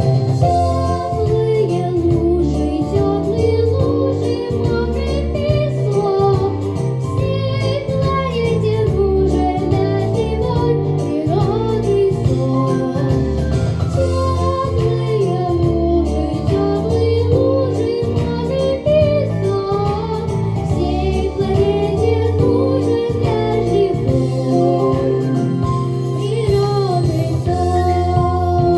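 Young girl singing a song into a handheld microphone over a recorded backing track with a regular bass beat.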